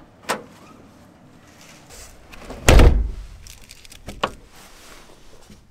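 The rear of a pickup truck's camper shell being shut, with one heavy, deep thump about three seconds in. Lighter knocks and clicks come before and after it.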